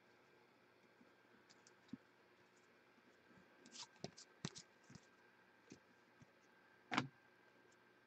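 Faint, scattered clicks and light scrapes of football trading cards being handled and shuffled against one another, a few at a time, with the loudest click near the end.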